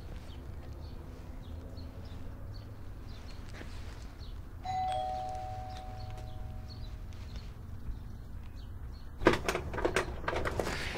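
A two-note ding-dong doorbell chime rings once, a higher note then a lower one, fading over about two seconds. Near the end there is a quick run of sharp clicks and rattles as the front door is unlocked and opened.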